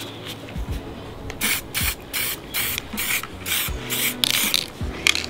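Aerosol spray-paint can sprayed in a quick run of about ten short hissing bursts, roughly three a second, starting about a second and a half in.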